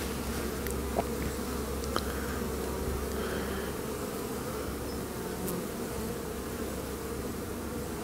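Honeybees humming steadily at the entrance of their hive as foragers fly in and out, the even buzz of a calm, busy colony.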